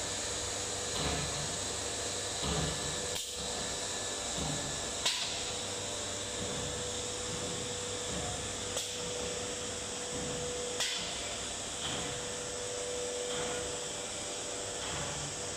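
StyleCNC S4 automatic nesting CNC router working a wood panel: the spindle and dust extraction make a steady rushing noise with a faint steady tone, and a few sharp clicks come every couple of seconds.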